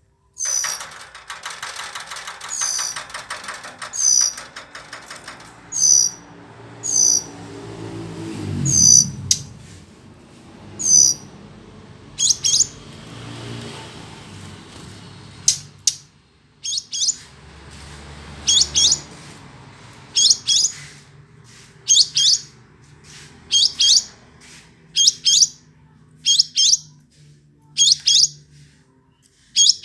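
Verditer flycatcher singing: short, high chirping notes repeated about once a second, some of them doubled, with a buzzy chatter in the first few seconds. A low sound falling in pitch passes underneath about nine seconds in.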